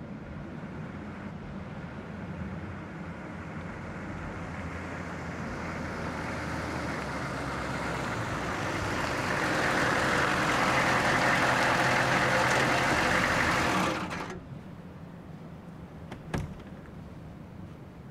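Old pickup truck's engine and tyres approaching, growing steadily louder until the truck pulls up close and the engine cuts off suddenly about 14 seconds in. A couple of seconds later comes one sharp click, the door latch as the driver's door opens.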